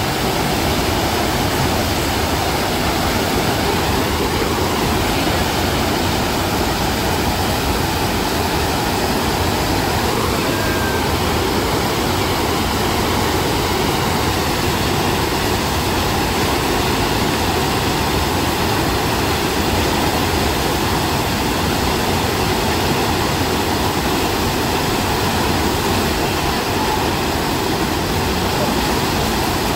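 Steady rush of water on a surf-simulator ride, pumped in a fast thin sheet up a padded slope under a bodyboarder.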